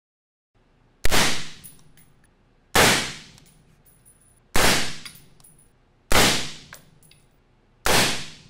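Five shots from a 6.5 Creedmoor rifle with 147-grain loads fired through a Dead Air Sandman K suppressor, each a sharp report that dies away over about a second, fired under two seconds apart. Each is followed by a faint high ring. The reports meter about 142 to 145 dB peak at mid-gun.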